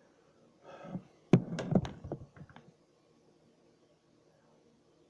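A brief clatter of hard knocks and clicks from a mixing bowl and a plastic brownie pan being handled as batter is poured out, about a second in, then quiet.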